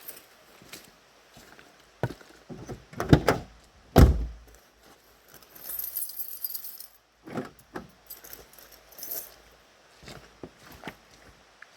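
Knocks and clatter of things being handled, with two loud thumps about three and four seconds in, then short bursts of rustling.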